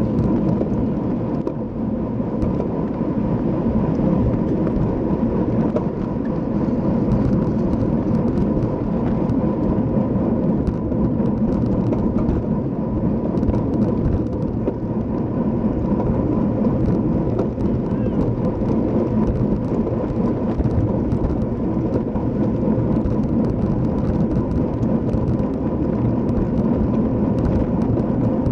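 Steady rush of wind on the microphone of a camera carried on a racing bicycle at speed, with tyre and road noise underneath and a faint steady whine.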